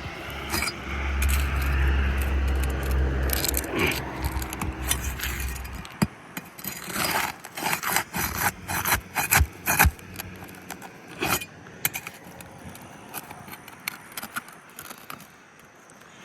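A low engine rumble runs for the first six seconds and cuts off abruptly. It is followed by a run of sharp metal clicks and scrapes: a pry bar working under asphalt shingles to free the roofing nails.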